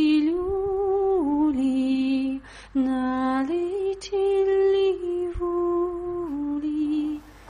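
A woman singing a slow Ukrainian folk lullaby alone, in long held notes that step gently up and down, with two short pauses for breath, one about two and a half seconds in and one near the end.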